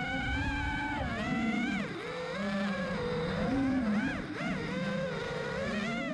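FPV quadcopter's brushless motors whining, the pitch surging up and falling back every second or so as the throttle is worked.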